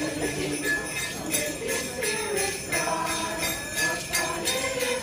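Jingle bells shaken in a steady beat over a Christmas carol melody.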